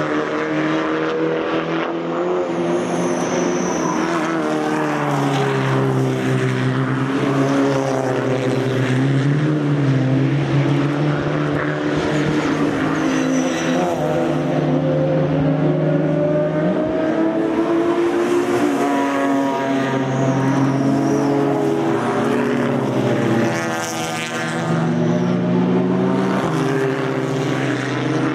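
Racing cars with loud, unrestricted exhausts running hard past the track edge, one after another, engines holding high revs with gear changes and pitch sweeping as cars go by.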